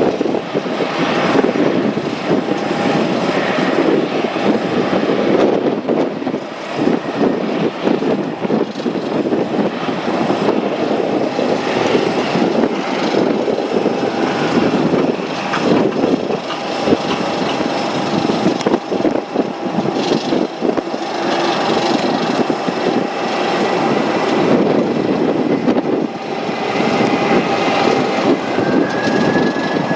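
Jet engines of a Boeing 747-400 running: a loud, steady rush with a whine through it, and a higher whine joining near the end.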